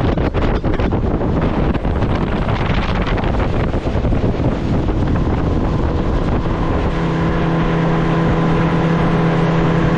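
Motorboat under way with wind buffeting the microphone, then a steady engine hum coming through from about two-thirds of the way in.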